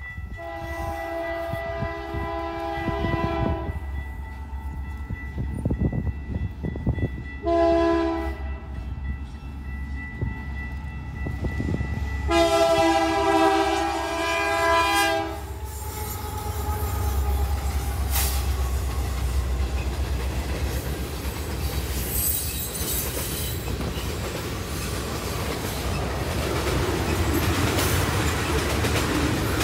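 A freight locomotive's air horn sounds three blasts, a chord of several notes: long, short, then long. From about halfway in, the freight train passes close by with a low rumble and wheels clacking over the rail joints.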